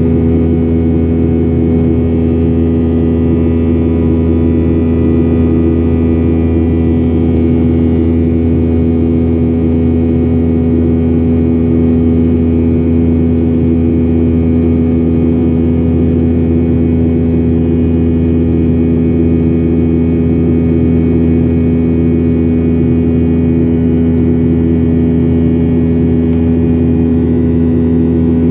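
Boeing 737-800's CFM56-7B jet engines heard inside the cabin: a steady drone with several held tones over a low hum, the engine noise the passenger found strange.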